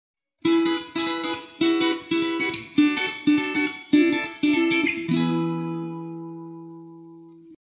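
Guitar intro music: about eight chords struck roughly half a second apart, then a last chord left to ring and fade for a couple of seconds before cutting off.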